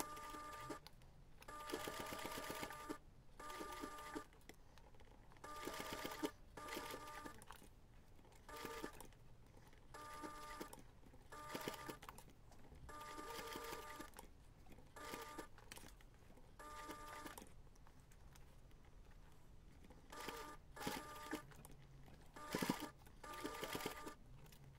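Electric sewing machine stitching in short runs of about a second, stopping and starting a dozen times as the binding is edge-stitched around the curved end of the pad. Each run is a steady motor whine with a fast rattle from the needle.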